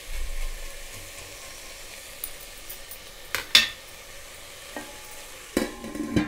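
Mixed vegetables sizzling in a steel pot as a spoon stirs them, with sharp clanks of the spoon against the pot about three and a half seconds in. Near the end a steel lid clatters onto the pot.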